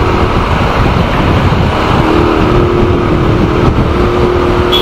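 Wind rushing over the microphone on a moving Bajaj Pulsar 220, with its single-cylinder engine running under a heavy load at highway speed. A steady engine hum comes up about two seconds in. The engine is labouring to build speed.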